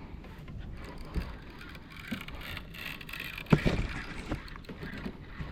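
Steady low wind rumble and water noise on a boat, with a sharp thump about three and a half seconds in and a smaller knock about a second in.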